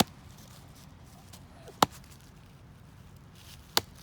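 A stick struck hard against a log, three sharp knocks about two seconds apart.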